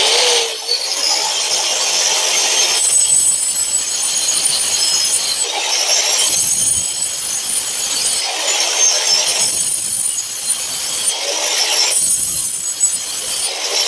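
Angle grinder fitted with a 4-inch stone-cutting disc cutting a series of grooves into a sharpening stone wheel, to make the wheel sharpen faster. The hissing grind swells and eases every second or two as the disc bites into the stone for each cut and lifts away.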